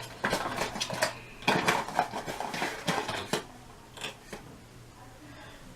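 Hard plastic parts and packaging being handled while unboxing a GoPro's accessories: a quick run of clicks, taps and rattles for about three seconds, then only a couple of faint clicks.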